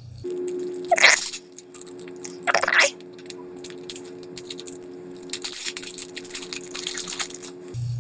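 Cellophane wrapper on a playing-card deck being crinkled and picked at while it is torn open, with two louder rustles about one and three seconds in and a run of small crackles near the end. A steady low hum runs under it.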